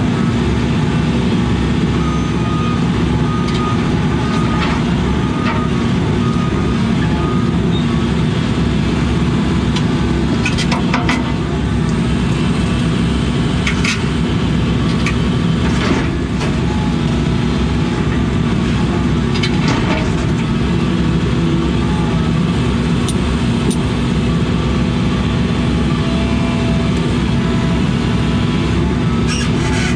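Case CX80 excavator's diesel engine running steadily, with several sharp knocks scattered through.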